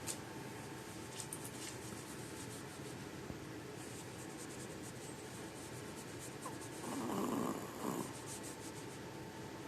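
A small pet dog breathing, with one louder, noisy breath lasting about a second, some seven seconds in.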